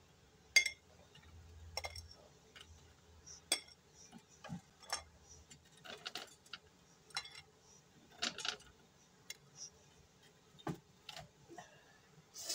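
Falafels being picked out of an air fryer basket and set on a ceramic plate: scattered light taps, clinks and scrapes of food and fingers against the plate and basket, the sharpest tap about half a second in.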